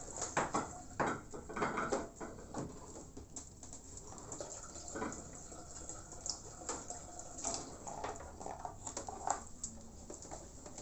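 Scattered knocks, clicks and rustles of things being handled, most frequent in the first few seconds.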